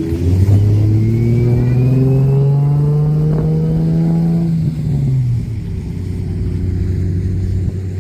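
Car engine revving hard under load, its pitch climbing steadily for about four and a half seconds, then falling away sharply as the throttle eases.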